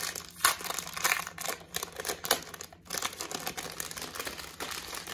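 Plastic blind-bag packaging crinkling and rustling as it is handled in the hands, with a few sharper crackles.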